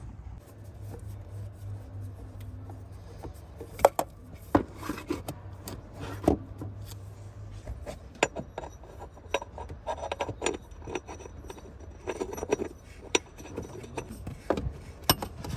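Hand work on a truck's oil filter during its removal: scattered clicks, knocks and scraping of metal and plastic parts and tools being handled, with a faint low hum under the first half.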